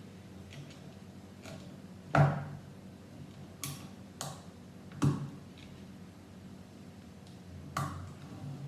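Lego plastic pieces being handled and pressed onto a model: about five sharp clicks and knocks, the loudest about two seconds in.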